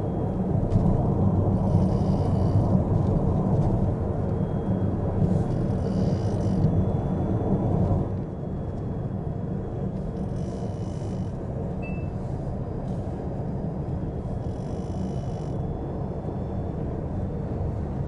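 Mitsubishi Outlander PHEV driving on an expressway: steady road and tyre noise, which drops a little about eight seconds in.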